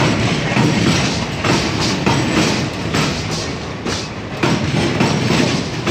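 Wheels of fast-passing Indian Railways passenger coaches pounding over the rail joints and crossover points: a loud, continuous clatter of wheel impacts.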